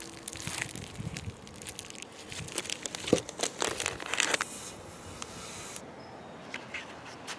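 Clear plastic bag crinkling as it is handled by hand, with a few light knocks mixed in about three to four seconds in. The crinkling stops after about four and a half seconds, and only faint handling sounds follow.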